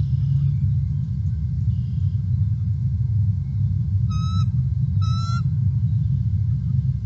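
Steady low rumble throughout, with two short, wavering bird calls about a second apart a little past the middle.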